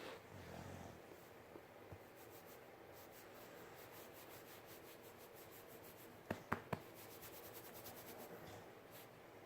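Near silence with a faint, even rustle and three quick sharp clicks about six and a half seconds in.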